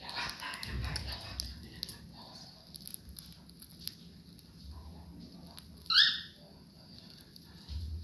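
Cockatiels pecking and crunching at popcorn on a bedspread, with many small clicks and rustles, then one loud, short, rising chirp from a cockatiel about six seconds in.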